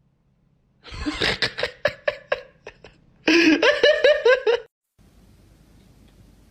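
A person laughing in two bouts of quick, rhythmic laughs, the second louder and higher.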